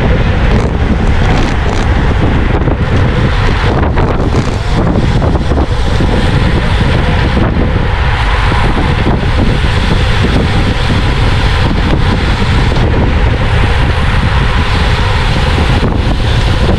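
Steady wind buffeting on an action camera's microphone from a road bike ridden at race speed in a pack, with a deep rumble underneath.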